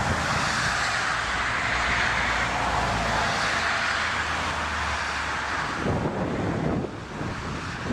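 Loud rushing roar of an aircraft passing close, mixed with wind on the microphone; it begins abruptly and eases a little about seven seconds in.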